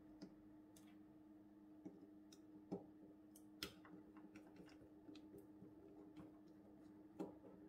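Faint, irregular clicks and taps of a small screwdriver and plastic model-railway parts as tiny screws are undone, over a low steady hum.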